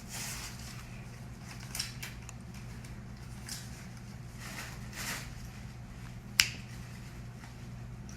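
Packaging being handled and opened by hand: intermittent rustles and small clicks, with one sharp click about six and a half seconds in, over a steady low hum.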